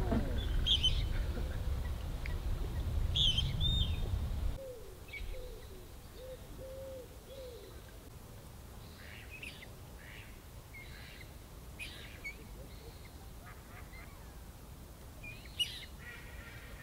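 Lakeside birds: a waterbird gives a run of short low calls about five seconds in, and small birds chirp throughout. A heavy low rumble fills the first four seconds, then cuts off.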